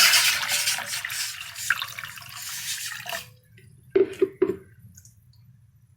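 Water being poured into a cooking pot: a steady splashing pour that thins out and stops about three seconds in. Two brief knocks follow a second later.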